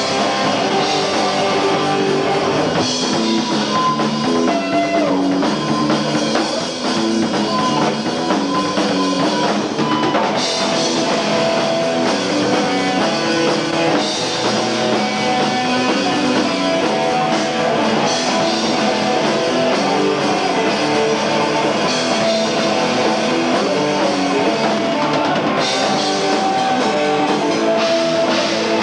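Hardcore punk band playing live: distorted electric guitar and drums, loud and unbroken, with a brief dip about seven seconds in. Picked up through a camcorder's built-in microphone.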